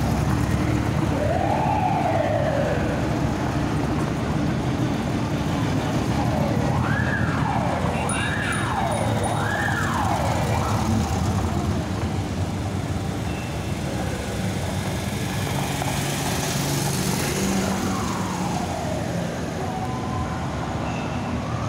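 A vehicle siren wailing in rising and falling sweeps: one slow sweep, then three quick ones in a row, then more near the end. Under it runs the steady low sound of slow-moving car engines on a cobbled street.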